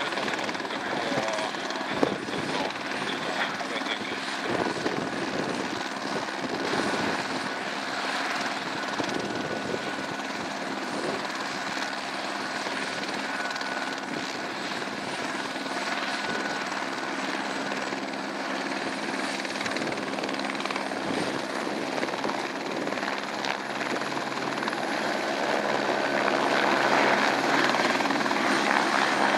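Airbus AS350 Ecureuil single-engine helicopter running with its rotor turning: a steady turbine whine over rotor noise. It grows louder near the end as the helicopter lifts off into a hover.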